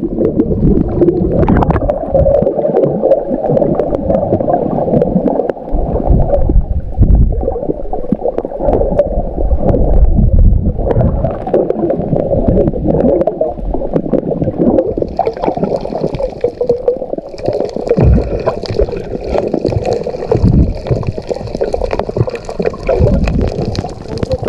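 Water sloshing and gurgling close to the microphone, loud and uneven.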